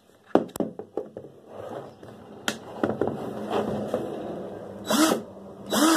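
DeWalt DCD771C2 20V cordless drill/driver run in short trigger pulls on its low speed setting (gear 1), the motor spinning up with a rising whine a few times, the last two near the end about a second apart, over a steady low hum. Sharp handling clicks come near the start.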